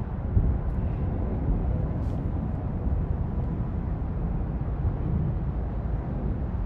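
Steady low outdoor rumble with a couple of faint clicks.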